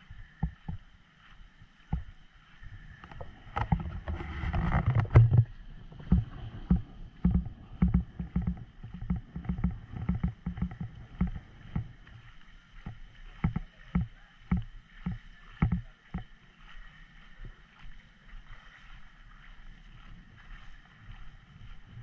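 Outdoor ambience with irregular low thumps and rumble from a handheld camera on the move, louder for about two seconds around four seconds in, over a faint steady high drone.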